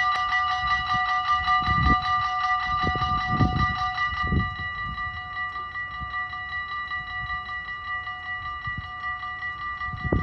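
Dutch level-crossing warning bells ringing in a rapid, even rhythm while the barriers lower, a little quieter from about four seconds in. A few low thuds come through underneath, near the start and again at the end.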